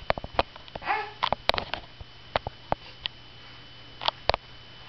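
A baby's breathy sniffs and huffs with sharp little clicks at irregular intervals, and one short high-pitched vocal sound about a second in.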